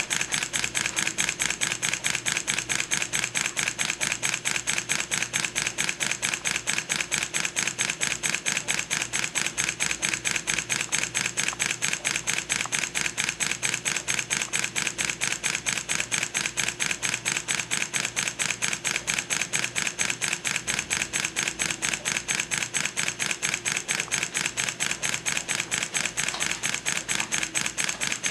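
Two-cylinder model marine compound steam engine running steadily, with a rapid, even beat.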